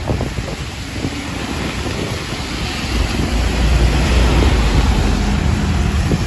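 Buses passing close on a wet road: engine rumble and tyre hiss on rain-soaked asphalt, growing louder as a green city bus goes by about halfway through.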